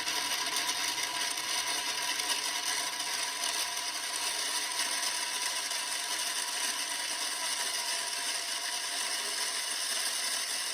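A 3D-printed plastic step-up gear train, driven by a 350 W DC motor, spinning at high speed, close to 23,000 RPM at its last gear. It makes a steady, high-pitched whine of meshing gear teeth.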